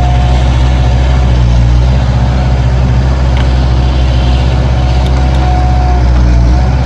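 Skid steer loaders, a Bobcat 763 and a New Holland LS180, running with their diesel engines making a steady low drone. A high whine sits over it at the start, fades out within the first second, and comes back wavering near the end.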